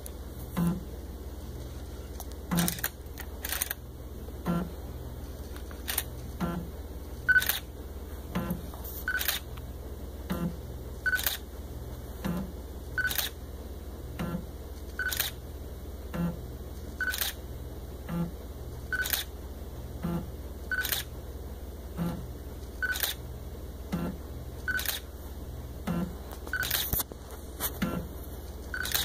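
DSLR camera shutter firing about every two seconds under an automated capture script, each shot paired with a short beep.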